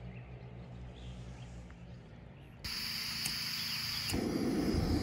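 Quiet outdoor ambience with a low steady hum. About two and a half seconds in it changes suddenly to louder, steady, high insect chirring, and a little after four seconds a rough rustling noise joins it.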